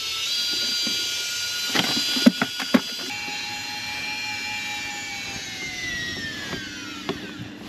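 Electric fishing reel motor winding in line: a whine that rises as it spins up, holds steady, then slowly drops in pitch toward the end. A few sharp clicks and knocks come about two seconds in.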